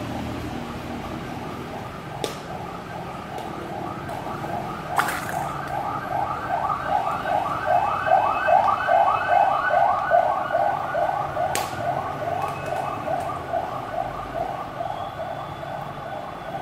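Electronic siren sounding in fast rising yelps, about three or four a second, swelling to its loudest midway and then fading. A few sharp plastic clicks from the capsule balls being handled stand out above it.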